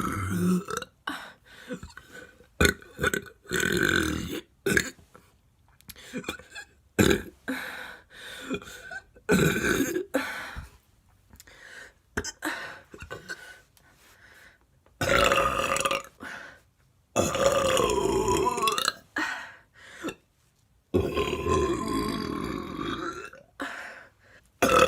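A woman burping over and over: a run of short burps, then from about halfway long drawn-out burps of two to three seconds each, their pitch bending.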